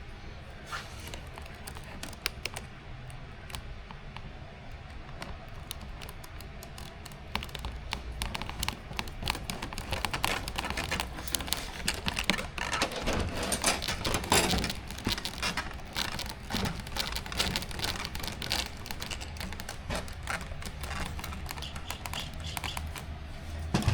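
Light clatter of small plastic parts and screws being handled on a tabletop: many quick, irregular clicks and taps that grow busier about a third of the way in.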